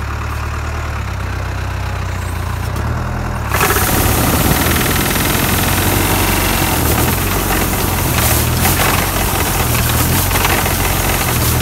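Tractor engine running steadily, then about three and a half seconds in the trunk shaker kicks in: a sudden, much louder noisy shaking as the clamp vibrates the olive tree and olives rain down onto the catching canvas.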